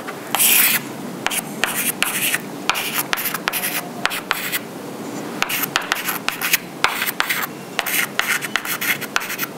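Chalk writing on a chalkboard: a run of short scratching strokes and light taps, with a louder scrape about half a second in.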